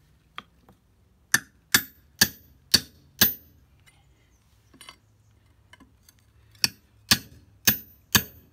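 Small hammer striking a steel bar set in a saw cut in a concrete block, to crack off the thin uncut layer in the middle: a run of five sharp, ringing metal-on-metal strikes about two a second, a pause, then another run of strikes near the end.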